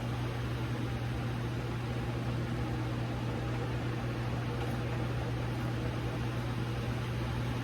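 A steady low electrical hum with an even hiss, like a small appliance motor or fan running without change.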